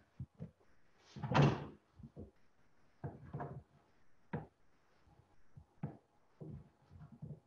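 Knife cutting a block of butter into cubes on a cutting board: a series of short knocks as the blade meets the board, with one louder thump about a second in.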